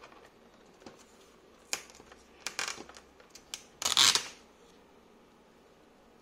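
Paper instruction card being slid and lifted against the plastic case of a Formlabs Form 3 resin tank: scattered short rustles and scrapes, the loudest a brief rustle about four seconds in.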